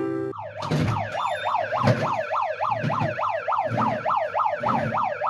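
Handheld megaphone's built-in siren sounding: a fast electronic wail sweeping up and down in pitch three or four times a second. It starts a moment in, cutting off the end of a short piano jingle.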